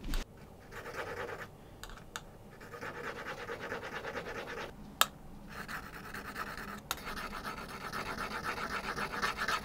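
Small steel engraving chisel honed on a #1500-grit abrasive disc: rapid back-and-forth scratching strokes, broken by short pauses, with one sharp click about five seconds in.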